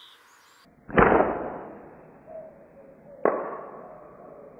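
Two sharp, muffled hits about two seconds apart during a 7 mm steel-ball slingshot shot at a bottle cap target, each trailing off in a long echoing decay. The first hit is the louder.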